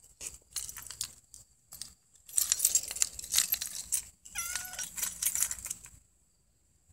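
A kitten gives one short meow, falling in pitch, a little past halfway through. Bursts of crackly rustling come before and after it, the loudest just before the meow, and stop about a second before the end.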